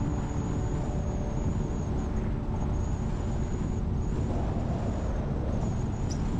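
Steady low rumble of a car driving, road and wind noise, with a faint high whine throughout.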